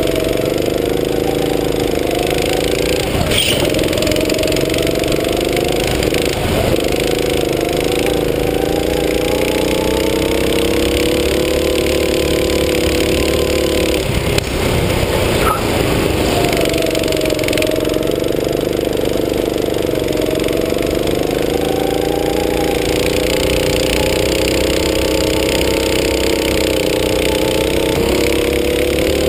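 Go-kart engine running hard, its pitch falling as it slows for corners and rising again as it accelerates out, twice over.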